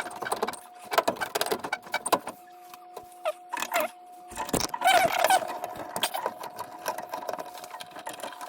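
Irregular clicks, knocks and metallic rattles of tools and parts being handled while a furnace's exhaust blower assembly is taken apart. A faint steady tone sits underneath, and a few short squeaky glides come about midway.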